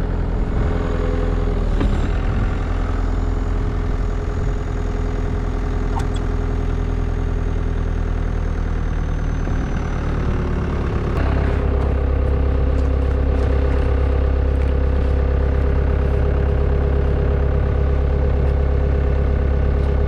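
Tracked skid steer's engine running steadily, then throttled up about eleven seconds in and held at higher revs as it strains against tracks frozen to the ground.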